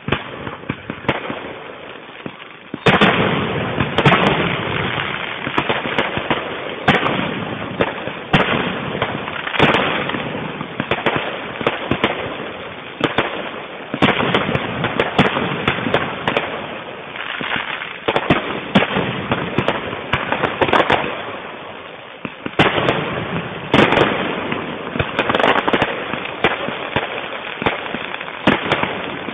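Fireworks display: a few scattered bangs, then from about three seconds in a dense, continuous barrage of shell bursts and crackling, easing briefly about two-thirds of the way through before building again.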